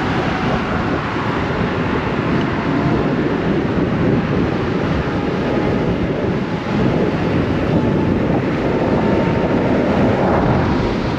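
Heavy wind buffeting the microphone while riding a Kaabo Wolf King GT electric scooter at speed, over steady tyre and road noise, with a faint thin whine.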